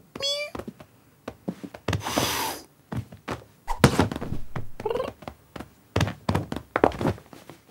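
Cartoon cat sounds for a scuffle between a cat and a kitten: a short mew, a brief hiss, then a string of soft thumps and knocks as they tussle on a sofa, with a short cat cry in the middle of it.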